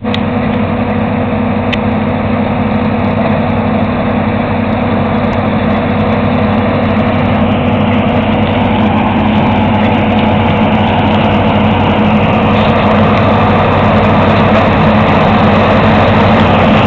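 John Deere 2256 combine harvester running steadily while it cuts soybeans, its engine and threshing machinery growing slowly louder as it comes closer.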